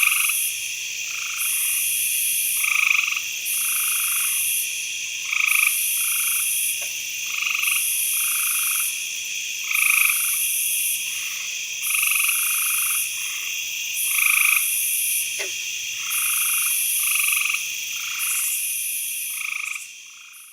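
Night chorus of frogs croaking over a steady insect trill, the calls repeating in a regular pattern about every two and a half seconds; it fades out near the end.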